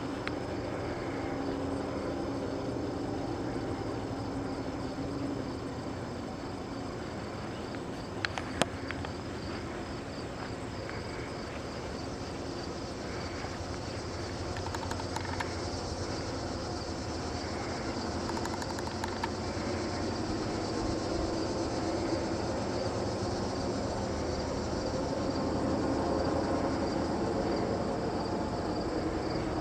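Outdoor ambience: insects chirping steadily over a low background rumble, with a couple of sharp clicks about eight seconds in.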